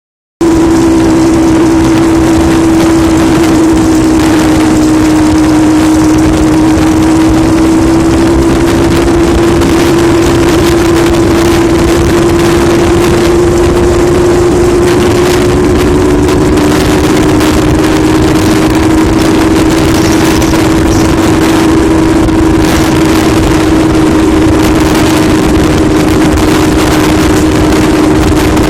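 Yamaha RX-King's single-cylinder two-stroke engine running steadily with a snoring exhaust note, its pitch drifting only slightly.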